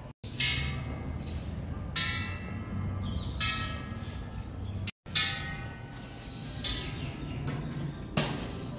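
A row of hanging metal temple bells struck one after another with a coin, each making a sharp clang that rings on, about every one and a half seconds, some seven strikes in all.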